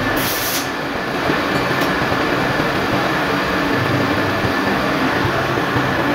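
Manual metal lathe running steadily, a constant mechanical hum and rumble from its motor and gearing, with a brief hiss about half a second in.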